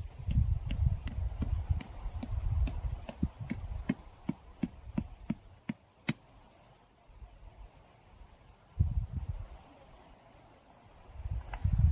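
A tent peg being hammered into the ground: evenly spaced sharp knocks, about two to three a second, stopping about six seconds in after a louder final strike. Wind buffets the microphone in gusts, and crickets keep up a steady high drone.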